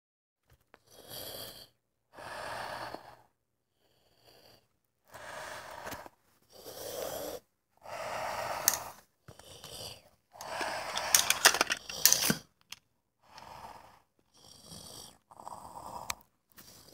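Heavy, loud breathing in and out through a plastic Darth Vader mask, imitating Vader's breathing: about ten breaths with short quiet gaps between them.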